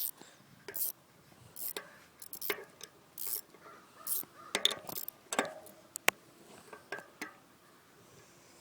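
A 15mm wrench working the front axle nut as it is tightened: an irregular run of short metallic clicks and scrapes, about a dozen, stopping a little after seven seconds in.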